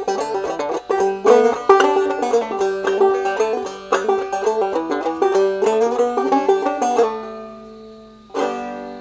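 Five-string banjo played clawhammer style in open G tuning, a brisk run of plucked notes over a repeating drone. About seven seconds in the notes stop and ring down, and a final strum about a second later rings out to end the tune.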